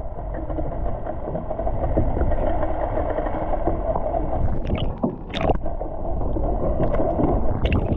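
Muffled, steady water noise heard through a camera held underwater, with a few sharp clicks about five and near eight seconds in.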